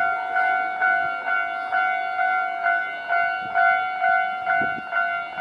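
Japanese railway level-crossing warning bell ringing in a steady, rapid rhythm, about two strikes a second, each strike ringing on into the next.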